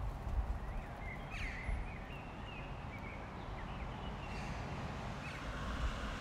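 Outdoor ambience: a low, uneven rumble, with a few short bird chirps between about one and five and a half seconds in.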